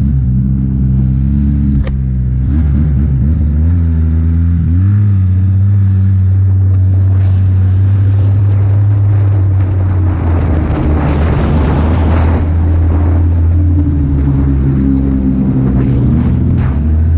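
Arctic Cat Sidewinder snowmobile engine running hard at high revs under full throttle. The revs climb about five seconds in and then hold at a steady high pitch, with a rush of wind and snow in the middle.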